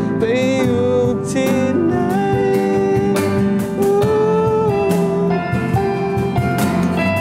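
Live acoustic band music: strummed acoustic guitar with keyboard and cajon, under a sustained, wavering melody line.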